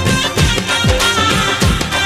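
Background music from a Tamil song, an instrumental stretch with no singing: a steady beat of deep drum hits, a little over two a second, under melodic instruments.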